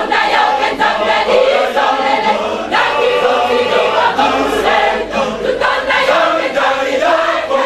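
A large choir of mostly women singing together loudly, coming in all at once at the start.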